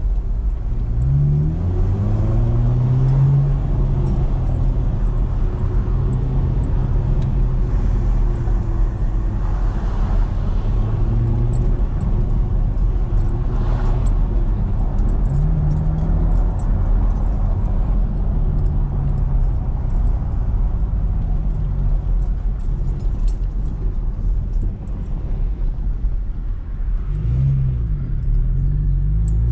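Chevrolet Camaro engine heard from inside the cabin while driving through town: it rises in pitch as the car pulls away about a second in, then runs steadily at low revs over road and tyre rumble, and revs up again near the end.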